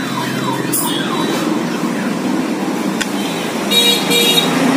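Street traffic rumble with a vehicle alarm's repeated falling tones fading out in the first second, then two short vehicle horn toots about four seconds in.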